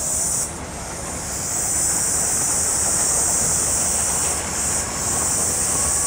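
Loud, steady chorus of crickets, a shrill high band that dips briefly a few times, over a low background rush.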